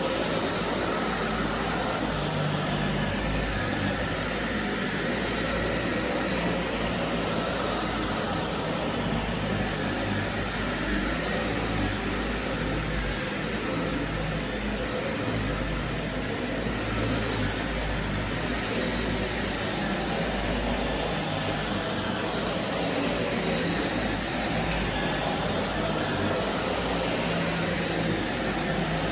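Vacuum cleaner running steadily, its motor giving a constant whooshing hum with a faint high whine.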